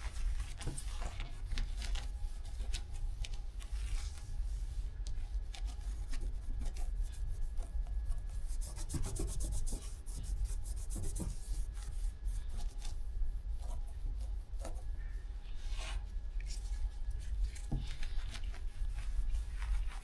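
Cloth wiping and rubbing the car door's surface where the exterior handle has been taken off, an uneven scratchy rubbing with small clicks throughout.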